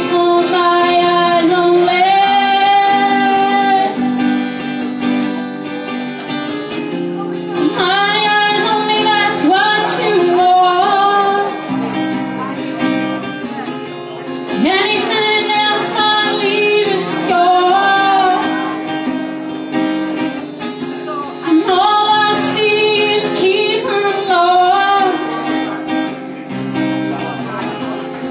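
A woman singing with long held notes over her own strummed acoustic guitar.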